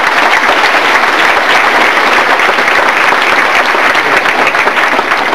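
An audience applauding: a sustained, steady round of clapping from many people.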